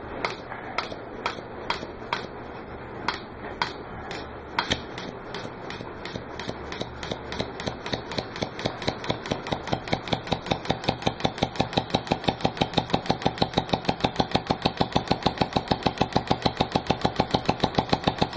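Two-stroke weed-eater engine converted to run on compressed air, turning slowly at first with uneven sharp strokes about every half second, then speeding up to a steady rapid beat of about seven strokes a second.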